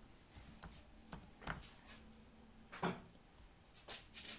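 Faint computer keyboard keystrokes: about six irregularly spaced taps and clicks.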